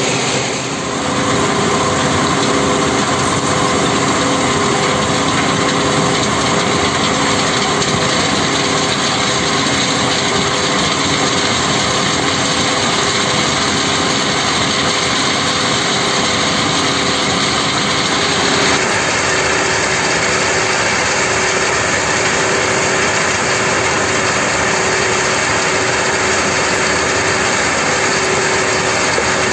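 Stone crushing plant running: jaw crusher, vibrating screen and conveyor belts making a loud, steady mechanical din with a constant hum. The sound shifts slightly about two-thirds of the way through.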